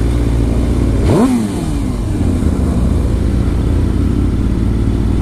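2005 Suzuki GSX-R600's inline-four engine running low, revving up sharply about a second in and dropping straight back down, then carrying on at low revs.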